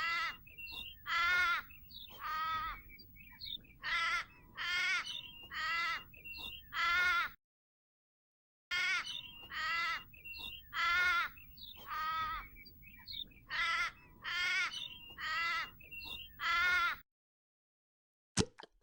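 A young animal calling over and over, about one call a second, each call short and pitched, with a brief pause partway through. The calls stop near the end, and a few sharp clicks follow.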